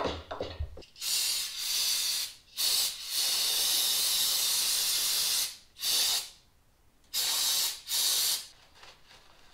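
Aerosol cleaner sprayed from a can in four bursts, the second one long at about three seconds, onto the thermostat mounting face of a bare engine. A few light knocks from handling come just before the first burst.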